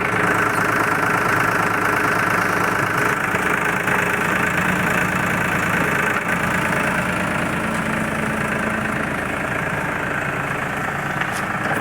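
Tractor diesel engine of a backhoe loader running steadily at a constant speed, easing slightly in level over the second half.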